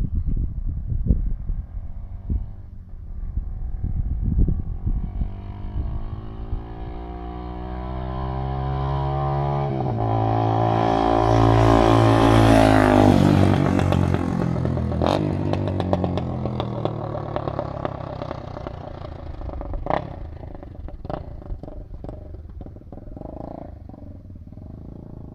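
Honda CB300R single-cylinder motorcycle engine running through a loud aftermarket exhaust tip. It grows louder to a peak about halfway through and then fades away, like a bike riding past, with a few sharp cracks as it fades.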